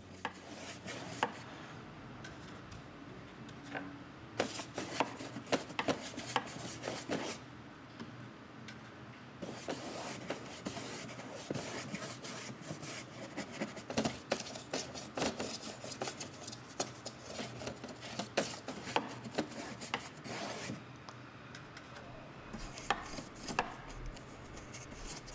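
Paintbrush scrubbing and dabbing acrylic paint onto a dollhouse wall in a scumbling technique: a busy run of scratchy bristle rubs broken by irregular taps.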